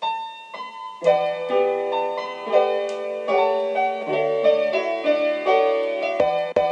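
Piano music, a run of single notes over chords, starting suddenly after silence. Two sharp knocks come near the end.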